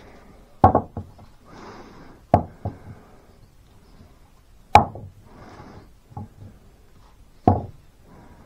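Kings County camp axe chopping into a piece of firewood held on a wooden chopping round, splitting off kindling: about four sharp wooden chops a couple of seconds apart, with a few lighter knocks between them.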